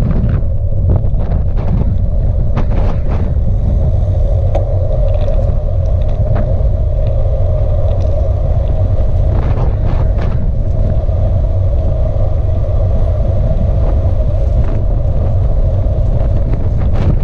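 Wind buffeting the microphone of a camera on a moving bike, a loud steady rumble with a band of road hum from the tyres on tarmac and a few brief clicks.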